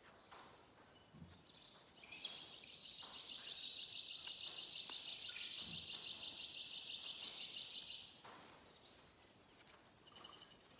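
A high, fast-pulsing animal trill starts about two seconds in and stops abruptly about six seconds later. It runs over faint clicks and rustles of barbed wire and tie wire being handled.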